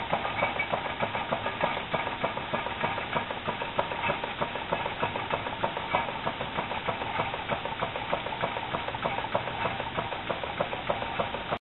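Homemade soda-can Stirling engine running over a small flame, its wire crank and linkage clattering in a rapid, even run of clicks over a steady hiss. It cuts off suddenly near the end.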